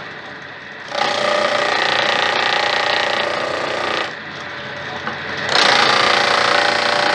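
A homemade electric-motor-driven disc sander (a sandpaper-covered plywood disc on a home-built wood lathe) running steadily. It gets louder and harsher twice, from about a second in to about four seconds and again from about five and a half seconds on, as wood is pressed against the spinning abrasive disc.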